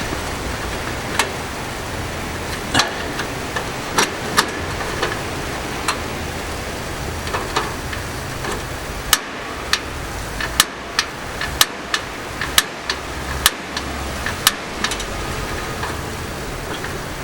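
A steady rushing noise of the snowstorm against the tent, with a run of sharp single clicks, densest from about nine to fifteen seconds in, from the portable gas heater's built-in piezo igniter being clicked to light it.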